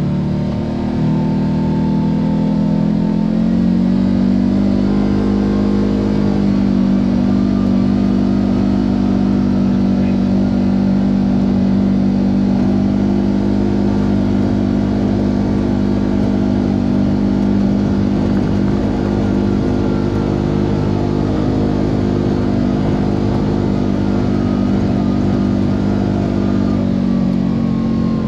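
Kawasaki Teryx KRX4 1000 side-by-side's parallel-twin engine running under way at a steady, fairly high speed, picking up about a second in and easing off near the end.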